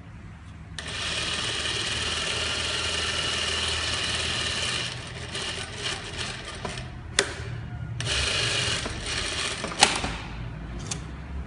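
Sakura Stitch single-needle industrial sewing machine, fitted with a pintuck folder, stitching a tuck into fabric: it starts about a second in and runs steadily, then sews in shorter stop-and-go runs, with two sharp clicks.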